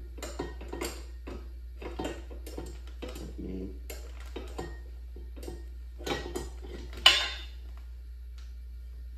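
Metal parts of a hand-cranked grain flaker being handled: a string of small clinks and clicks, with one loud metallic clank about seven seconds in that rings briefly.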